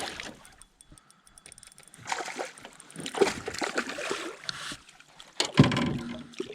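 Water splashing and sloshing as a hooked bass thrashes at the surface beside a small boat, with a sharp knock about five and a half seconds in.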